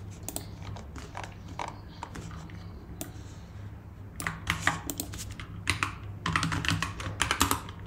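Computer keyboard keys clicking: scattered single keystrokes, then two quick runs of typing in the second half.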